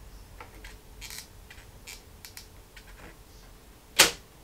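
Small handling noises as a clear polycarbonate (Lexan) sheet is pressed onto a terrarium lid frame with a hot glue gun in hand: scattered soft clicks and rustles, with one sharp click about four seconds in.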